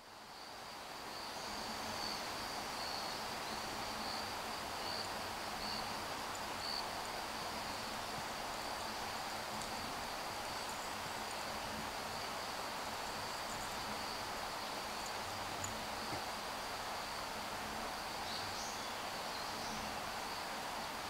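Outdoor ambience: insects trilling steadily in a high band over a soft even hiss, with a brief higher chirp near the end.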